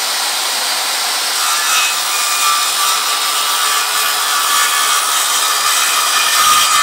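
Corded circular saw running at full speed and crosscutting a wooden board, a steady high whine mixed with the rasp of the blade through the wood, finishing the cut near the end.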